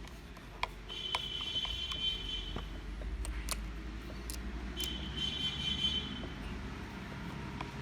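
Small metal clicks and two stretches of high squeaky scraping, about a second in and again near five seconds, as a flat screwdriver and wrench work the chainsaw's chain tensioner to snug the chain on the bar.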